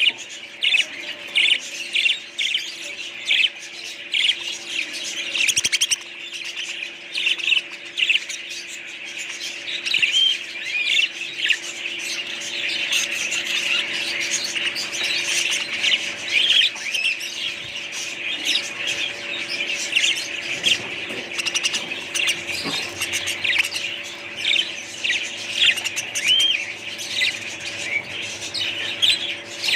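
A group of small pet birds chirping and squawking without pause: many short, high calls overlapping one another, with a faint steady hum underneath.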